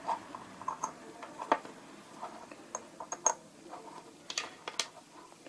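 Small sharp clicks and taps at irregular intervals from an airgun magazine and lead slugs being handled, the loudest about a second and a half in and about three seconds in.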